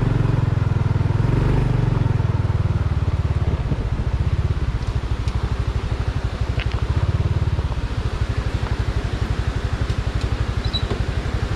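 Honda Dash 125 FI's single-cylinder four-stroke engine running, easing off about three and a half seconds in to a slow, even putter of separate firing pulses, with a brief rise in revs near the middle.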